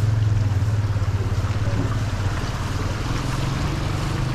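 A steady low engine-like hum that shifts slightly in pitch about three seconds in, over an even rushing hiss.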